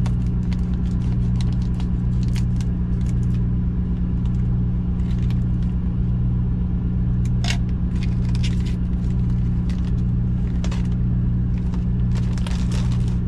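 Steady low drone of a parked semi truck's idling diesel engine, with plastic packaging crinkling and rustling on top as a bag of tuna is cut open with scissors and handled.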